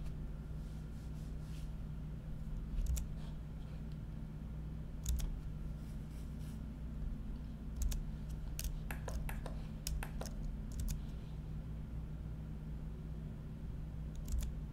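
Scattered sharp clicks from a computer keyboard and mouse, with a quick run of several clicks about two thirds of the way through, over a steady low hum.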